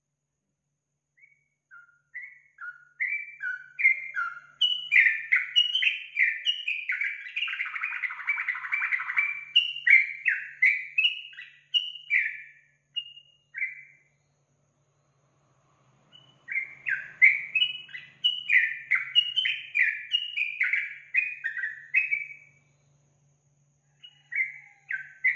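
Yellow-vented bulbul (trucukan) singing: two long runs of quick, short chattering notes with a pause of about two seconds between them, and a few more notes near the end.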